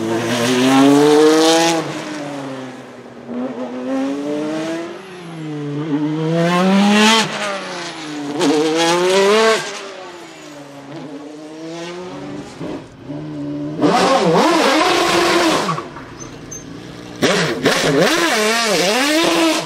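Maserati MC12 Corsa's V12 engine accelerating hard through the gears across several passes, its pitch climbing and then dropping at each upshift. Near the end come two loud spells of quick revving, with the pitch swinging rapidly up and down.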